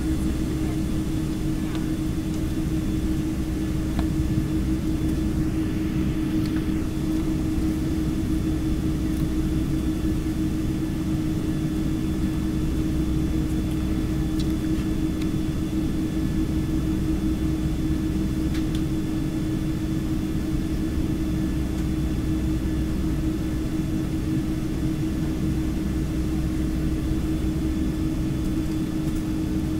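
Steady cabin drone of a jet airliner on the ground, heard from inside the cabin: an even engine and air-system rumble with a constant low hum.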